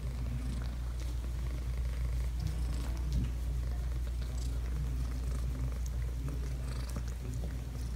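Long-haired cat purring steadily while being stroked.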